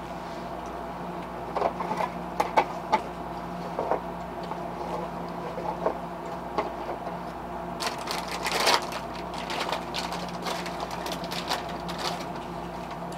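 A steady mechanical hum of several tones, with scattered light clicks and taps, the loudest a few seconds in, and a short hissy rustle about eight seconds in.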